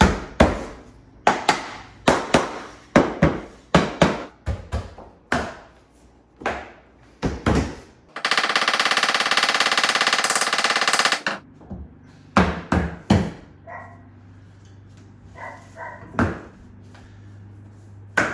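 Hammer blows on a tapping block knocking luxury vinyl planks tight into their click-lock joints: a rapid, irregular series of sharp knocks. About eight seconds in, a power tool cuts steadily for about three seconds, and a few more knocks follow.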